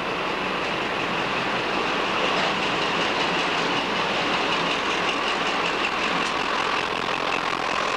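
Class 35 Hymek diesel-hydraulic locomotive running light as it approaches: a steady engine note with a held high whine and rail wheel noise, growing slightly louder.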